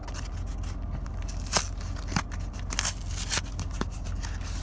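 Foil Pokémon booster pack wrapper and cards being handled, crinkling and crackling in a string of sharp rustles, the loudest about a second and a half in and again around three seconds in.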